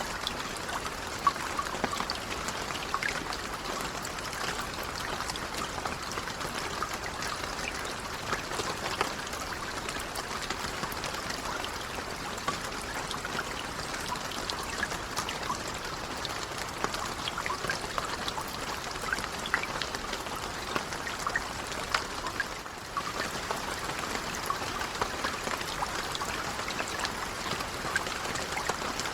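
Gentle, steady rain: an even hiss with many separate drops ticking through it. It dips briefly about three-quarters of the way in.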